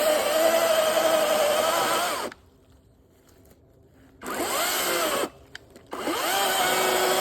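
Electric chainsaw cutting into a rotten poplar trunk in three runs: its pitch rises as the motor spins up, it stops dead a little over two seconds in, runs again briefly around four seconds, then starts once more near six seconds and keeps going.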